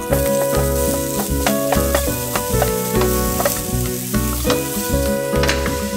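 Food sizzling on an electric contact grill, a steady dense hiss that starts and stops abruptly, over background music with a pulsing bass.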